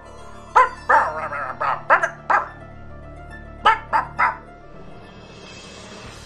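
A dog barking in short runs of quick barks and yips, three to five at a time, over a low steady hum that stops about five seconds in.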